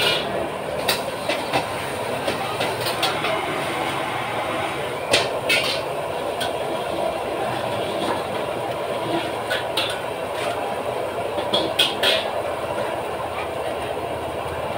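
Fried rice being cooked in a wok over a gas burner: a steady roar, with sharp irregular clanks of a metal spatula striking the wok, several of them in quick pairs.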